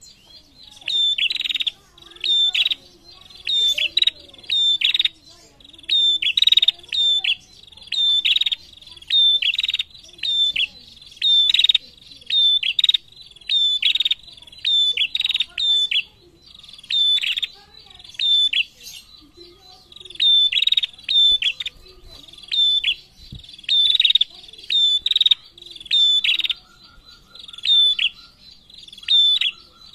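Female prenjak, a small prinia-type songbird, calling busily: short, sharp, high chirped notes in quick clusters, repeated about once a second with brief pauses. A fainter, lower ticking trill comes in near the end.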